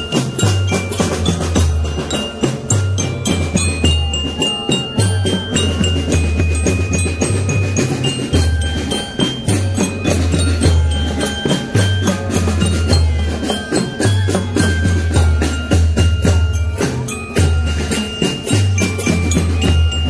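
Drum band playing: a fast, dense rattle of marching drums under a stepping melody on glockenspiel-type bells, over repeated deep bass notes.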